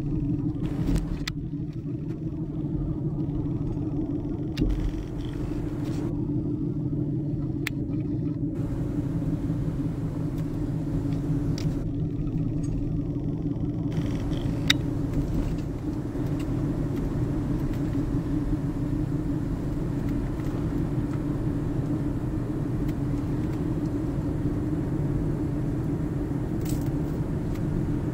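Steady engine and tyre rumble inside a moving car's cabin, with a few brief clicks.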